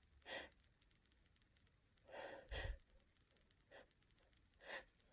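Near silence broken by a few short, soft breaths and sniffs from a congested person with a cold.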